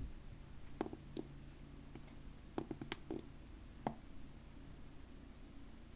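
Thin aluminium drink-can bottoms being handled and pressed together: a few faint clicks and crinkles of the thin metal, with several close together about three seconds in.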